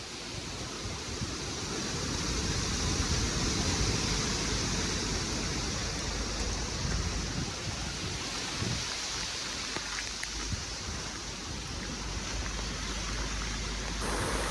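Hurricane wind blowing hard, a steady rushing noise that builds over the first couple of seconds and then holds, with the wind buffeting the microphone.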